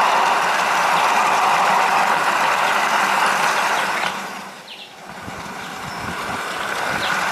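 Garden-railway model train running along its track, heard from a camera riding on the train: a steady running noise of motor and wheels on rail. About four and a half seconds in it briefly drops away, then builds back up with a low rumble and light clicks.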